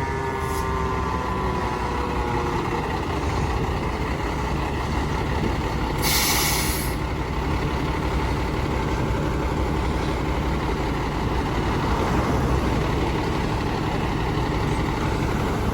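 2009 Seagrave Marauder II fire engine with its siren winding down, falling in pitch and fading out in the first couple of seconds, over the steady rumble of its running engine. About six seconds in the air brakes let out a short hiss.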